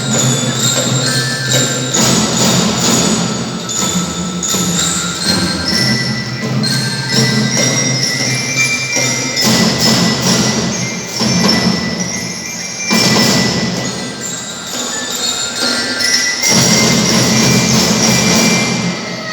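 A children's drum band playing a tune: bell lyres (glockenspiel-type mallet bells) carry a ringing melody over marching percussion.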